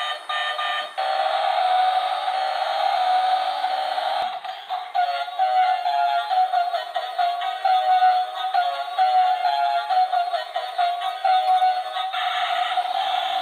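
Bump-and-go toy car's built-in electronic sound chip playing through its tiny, tinny speaker: a held tone for the first few seconds, then a quick-note electronic tune from about five seconds in until near the end.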